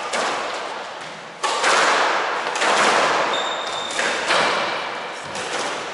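Squash rally: the rubber squash ball is struck by rackets and hits the court walls, making about five sharp cracks roughly a second apart, each ringing on in the court's echo. Near the middle, a brief high squeak of a shoe on the wooden floor.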